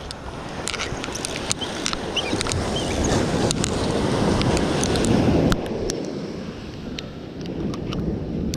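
Ocean surf washing on the beach with wind buffeting the microphone, swelling to its loudest a few seconds in and falling away sharply about two-thirds of the way through, with scattered faint ticks throughout.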